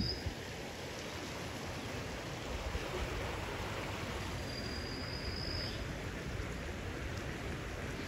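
Steady rush of a creek running high after heavy rain. A faint, thin high tone sounds for about a second midway.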